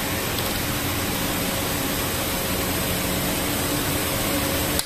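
Steady machine hum with a hiss, running evenly with no distinct strikes or clicks, cut off suddenly near the end.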